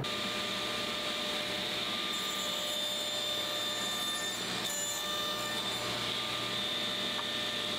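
Steady mechanical whir with a thin high whine running under it, even throughout, with no distinct knocks.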